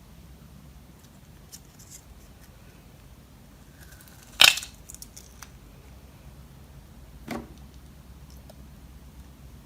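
A few faint clicks, then one sharp, loud clack about four and a half seconds in with a few small clicks after it, and a softer, duller knock near seven seconds: small hard objects being handled and set down.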